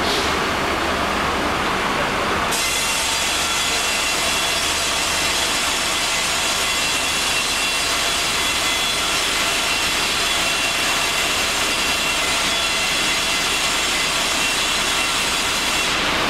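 Mobile crane's engine and hydraulics running as it lowers a slung load, a steady noise with a high whine that comes in about two and a half seconds in and drops away near the end.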